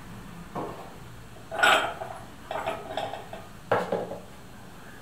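Small Onta-yaki stoneware toothpick holders being set down and shifted on a table: several ceramic knocks and clinks, the loudest about one and a half seconds in and another sharp one near four seconds.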